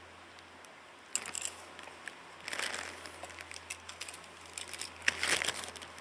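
Hands handling small parts, making three short bursts of crinkling and rustling: about a second in, around two and a half seconds in, and the loudest about five seconds in. A steady low hum runs underneath.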